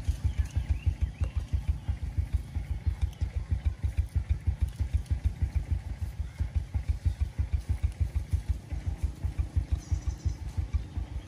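Engine idling slowly, a steady low chugging of about six even beats a second.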